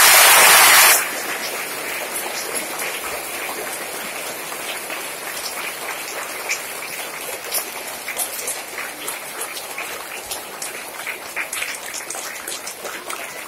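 A large crowd of schoolchildren clapping: a dense, steady patter of many hand claps. A loud rush of noise fills the first second before the clapping settles.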